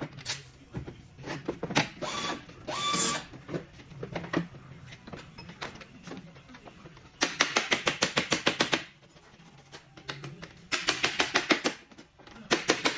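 Rapid, evenly spaced mechanical clicking, about ten strokes a second, in three runs: about 7 seconds in for nearly two seconds, again about 11 seconds in for about a second, and once more briefly at the end. It is typical of a ratcheting tool working bolts loose on the truck, with a few knocks and a short squeak earlier.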